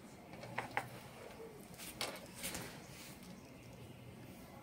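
Faint handling sounds of multimeter test leads being unclipped from a solar panel's terminals: two short clicks close together a little over half a second in, then brief rustles around two seconds in.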